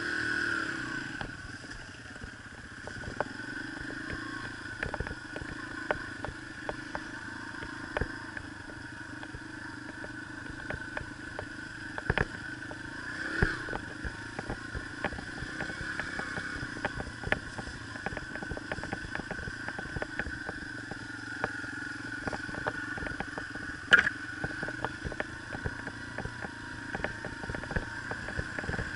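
Yamaha TT-R125 dirt bike engine running at a steady trail pace, heard from the rider's helmet. Many small clattering knocks come from the bike jolting over the rough ground, with two sharper knocks about twelve and twenty-four seconds in.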